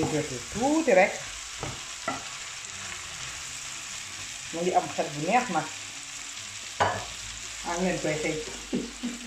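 Zucchini and chicken sizzling in a frying pan as they are stirred with a wooden spoon, with a few sharp knocks of the spoon against the pan. Short pitched sounds break in over the sizzle three or four times and are the loudest thing heard.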